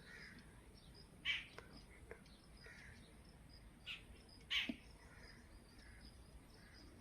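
Birds calling: three short, harsh calls, one about a second in and two more between four and five seconds, over faint, steady high chirping.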